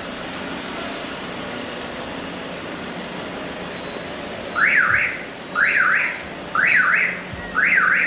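Electronic siren sounding four short rising-and-falling wails about a second apart, starting about halfway in, over steady street background noise with a low hum.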